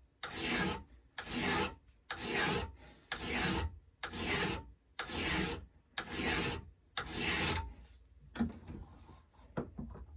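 Hand file being pushed across the steel edge of a paper cutter blade held in a vise: eight even strokes about a second apart, flattening the edge square so that it shears cleanly. The strokes stop near the end, followed by a few light knocks and clicks as the tool is handled.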